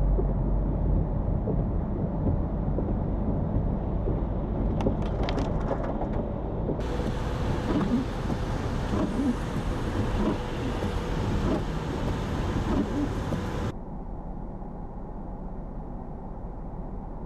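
Low, steady rumble of vehicle engine and road noise on a snow-covered highway, with a quick cluster of clicks or rattles about five seconds in. The sound changes abruptly about seven seconds in and drops quieter about fourteen seconds in.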